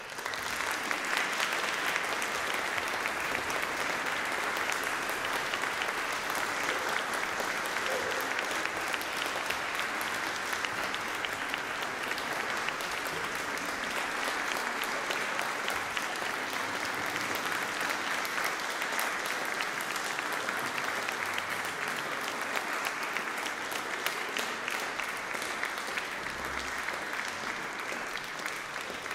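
Audience applauding: dense, steady clapping that breaks out suddenly and eases slightly near the end.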